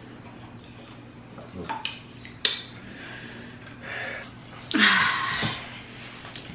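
A person's hard, breathy exhale just before five seconds in, the loudest sound, with a sharp click about two and a half seconds in and small mouth and table sounds while eating.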